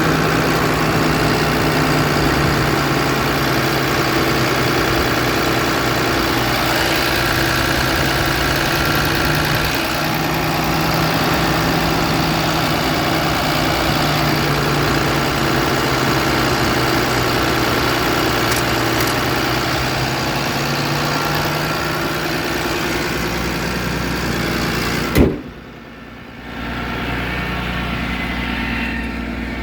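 A Dodge 5500 work truck's engine idling steadily, with a sharp knock about 25 seconds in and a brief drop in the sound right after.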